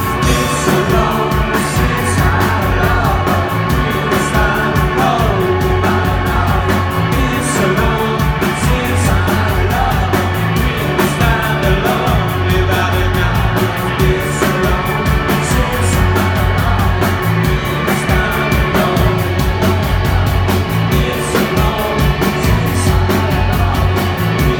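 Live rock band playing: steady drums with a driving cymbal beat, guitars and bass, with singing over the top.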